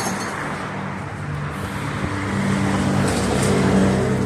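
Street traffic: a motor vehicle's engine running close by over road noise, growing louder toward the end as it nears.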